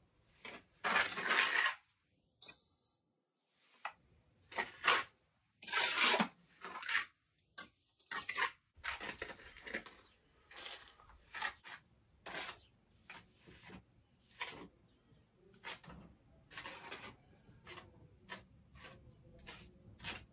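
Steel trowel scraping and smoothing wet lime render onto an old brick arch, in irregular strokes, some short scrapes and some lasting about a second.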